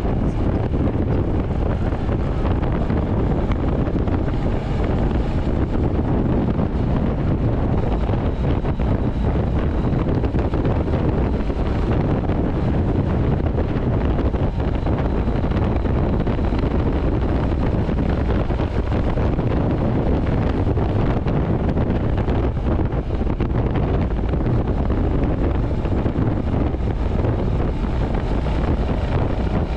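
Royal Enfield Hunter 350's single-cylinder engine and exhaust running steadily at highway cruising speed, under heavy wind noise on the microphone.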